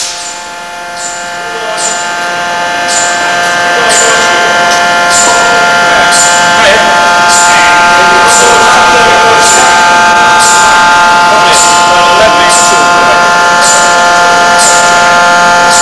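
Electric-upsetting forging machine, a hydraulic press with resistance heating, running: a steady multi-tone whine with a short, sharp hiss repeating evenly about every 0.6 s, starting about a second in.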